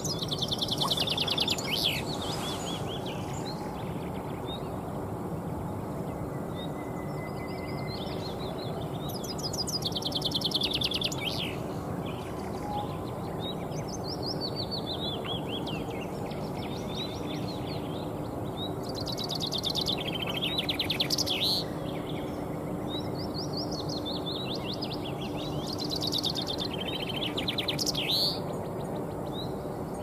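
Male common chaffinch singing its song again and again, a phrase every few seconds. Each phrase is a run of quick notes that falls in pitch and ends in a brief flourish, over steady background noise.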